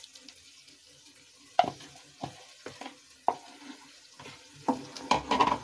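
Wooden spatula scraping thick spinach purée out of a bowl into a non-stick pan of cooking masala, with sharp knocks and scrapes starting about a second and a half in, over a faint sizzle.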